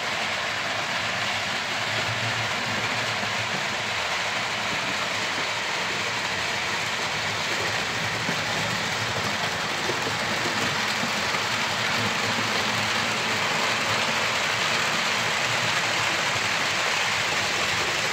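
H0-scale model trains running on the layout's track: a steady whirring rattle of small wheels and motors on the rails, growing a little louder over the last few seconds.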